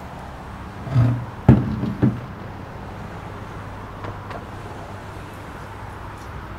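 Three dull knocks of glass kitchenware against a wooden tabletop about a second in, the middle one sharpest and loudest, over a steady low hum.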